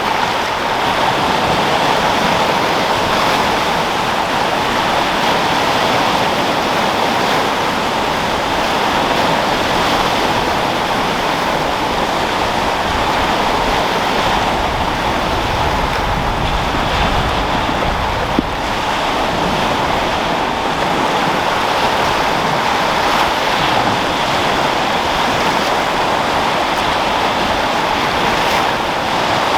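Sea surf: waves rolling and breaking in a steady, loud wash of noise, with wind blowing. A single brief click about eighteen seconds in.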